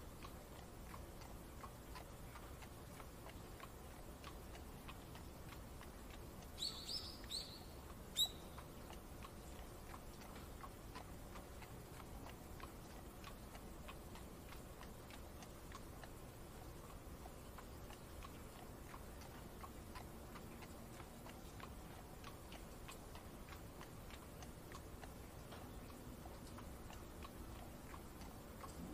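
Faint, steady ticking of horse hooves at a walk over a soft hiss of rain. A bird gives four short chirps about seven to eight seconds in, the last the loudest.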